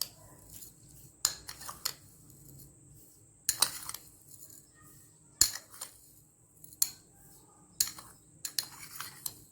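A metal spoon clinking and scraping against a bowl as heaped spoonfuls of sugar are scooped and tipped in one after another. There is a sharp clink every second or two, some with a short scrape.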